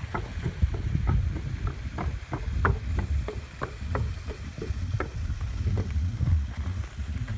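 A horse walking across a wooden plank bridge, its hooves knocking on the boards at about two to three steps a second.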